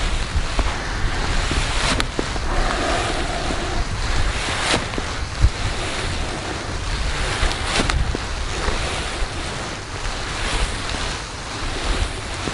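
Wind buffeting the microphone: a steady rushing noise, strongest in the low end, with a few faint clicks.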